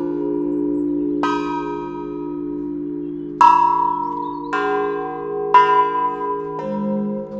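Tall metal tubes of a chime sculpture struck one after another with a beater: about five strikes, each ringing out in long, bell-like tones. The strikes sound over a lasting low ringing from the tubes already sounding, which wavers slowly; the two strikes near the middle and about two-thirds in are the loudest.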